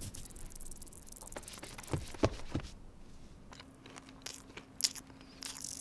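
Paper fast-food bags and burger wrappers rustling and crinkling, with a few sharp crackles. A faint steady hum comes in about halfway.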